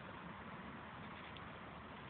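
Faint, steady outdoor background noise with a low rumble and no distinct sound standing out.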